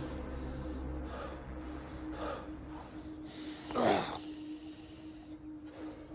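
Men breathing hard and straining as they struggle in a close grapple, with short sharp exhales through the nose and a louder strained grunt about four seconds in. A faint steady low drone sits underneath.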